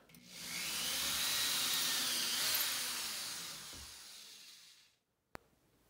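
Corded electric drill running, boring a small pilot hole through drywall into a wooden stud. It runs up over the first second, holds steady, then fades away about five seconds in; a single short click follows.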